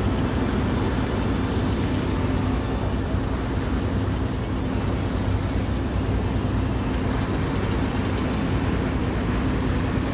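Fishing boat's engine running steadily at cruising speed, a constant low hum, under the rushing noise of wind and the churning wake.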